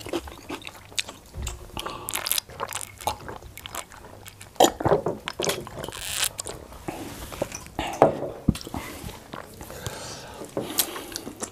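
Close-miked eating sounds of people eating fufu and efo riro soup by hand: irregular chewing, lip-smacking and mouth clicks.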